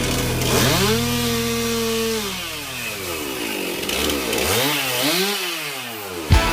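Two-stroke chainsaw engine revving up about half a second in, holding high for over a second, dropping back, then revved up and down a few more times.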